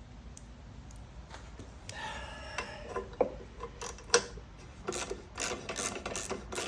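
Hand tools working on a lawnmower: a brief squeak about two seconds in, then irregular metallic clicks and rattles coming thicker toward the end.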